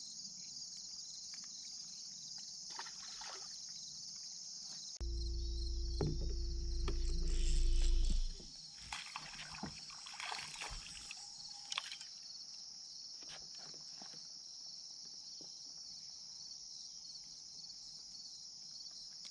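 A steady, high-pitched chorus of insects, likely crickets. About five seconds in, a low rumble with a steady hum starts abruptly and cuts off about three seconds later. After it come scattered light clicks from fishing tackle being handled.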